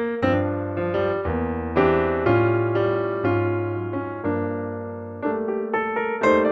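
Background piano music: slow chords over low bass notes, each struck note fading, with quicker notes entering about five seconds in.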